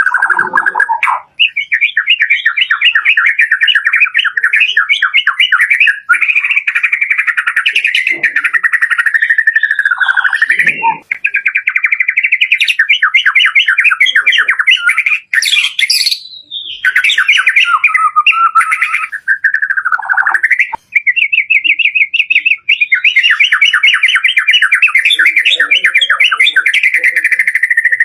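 White-rumped shama (murai batu) singing a loud, fast song of rapidly repeated trilled notes. The phrases are broken by brief pauses every few seconds, with a few high sweeping whistles between them.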